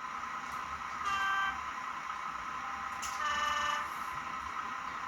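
Sound decoder in a Bachmann Windhoff MPV model playing two horn blasts through the model's small speaker as it changes direction, the second lower and longer than the first, over a steady engine-sound drone.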